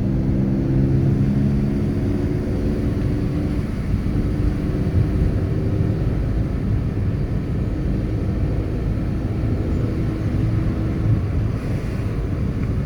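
Car engine running while driving, with steady rumbling road and wind noise; the engine's tone shifts in pitch a few times.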